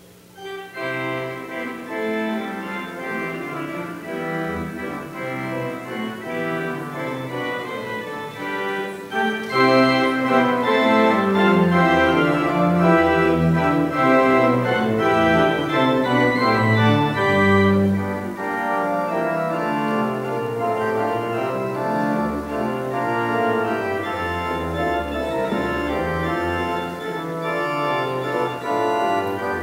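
Church organ music begins just after the start and sustains full chords. It swells noticeably louder about nine seconds in.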